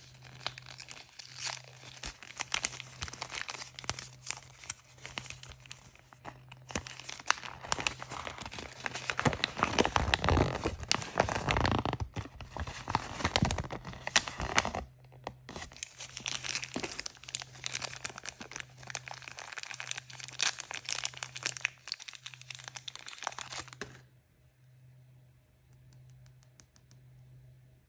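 Toy surprise packaging being torn open and crinkled by hand: a dense run of crackling, crumpling and tearing that is loudest in the middle. It drops away to a few faint light clicks for the last few seconds.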